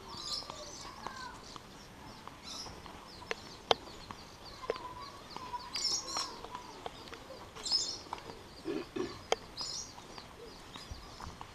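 Birds chirping and calling at intervals, with a sharp click about four seconds in and another later on.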